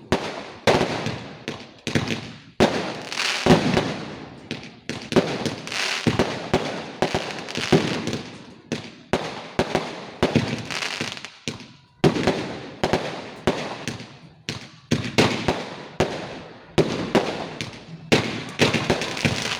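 Fireworks going off in rapid succession: a long string of sharp bangs, about one to two a second, each trailing off.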